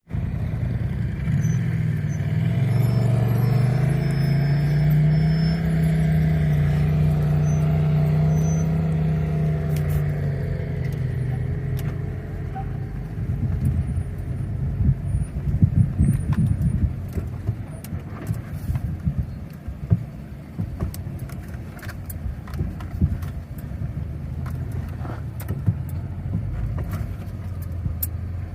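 Toyota Tundra pickup's engine running steadily at low revs as the truck crawls down a steep rock ledge. Partway through the hum gives way to a rougher stretch of many short knocks and scrapes, tyres and underbody working over rock.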